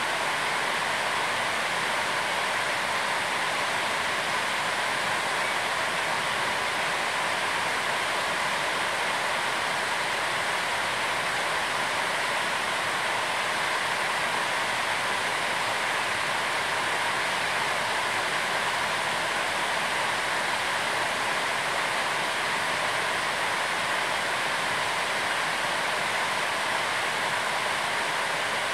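A steady, even rushing noise that does not change in level or character.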